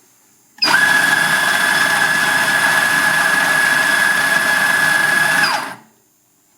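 Compak commercial espresso grinder's motor running and grinding an 18 g dose of coffee beans fine for espresso. It starts suddenly about half a second in, runs evenly for about five seconds with a steady high whine over the grinding noise, and cuts off near the end.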